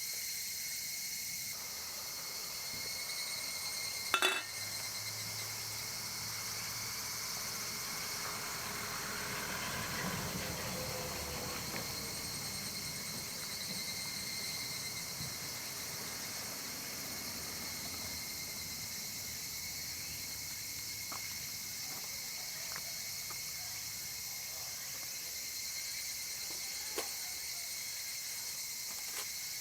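A steady chorus of summer insects chirring, keeping to a few fixed high pitches. A sharp knock sounds about four seconds in, and a small click near the end.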